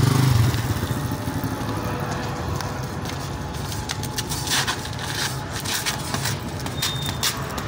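Motorcycle engine running, loudest at the very start and then settling to a steady hum, with a run of sharp crackling clicks in the second half.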